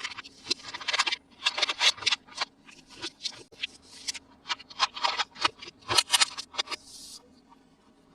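Toy packaging being handled and opened: irregular crackling and rustling in quick clusters of clicks, dying away near the end.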